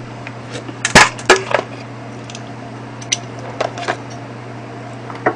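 Plastic blender jar and lid being handled: a few sharp knocks and clinks, the loudest about a second in and a small cluster around three to four seconds in.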